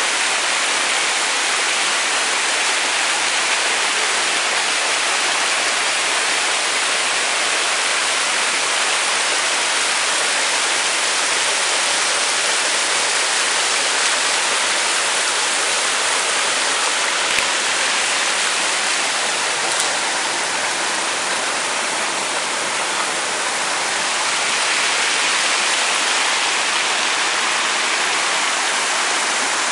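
Mountain stream running over rocks and a small cascade: a steady, even rush of water.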